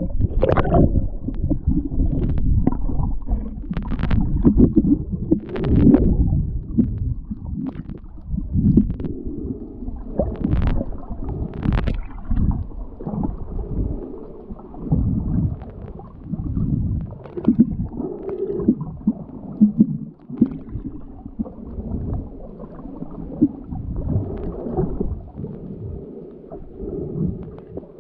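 Muffled underwater sound from a camera just below the surface: water sloshing and gurgling against it with low rumbling, and a few sharp clicks in the first half.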